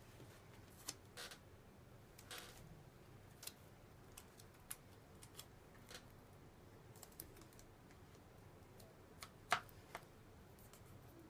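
Scattered light clicks and taps from hands handling a paper cup-noodle cup and its half-peeled paper lid, with a sharper click near the end.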